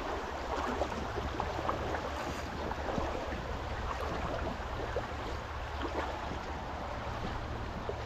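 Steady rush of a flowing river, a continuous even wash of water noise with a few faint ticks.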